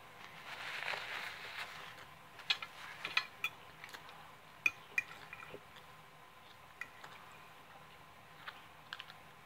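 Metal fork clicking and scraping against a plate while lifting noodles: scattered sharp clinks, thickest from about two and a half to five seconds in, with a few more near the end. A soft rustle comes in the first couple of seconds.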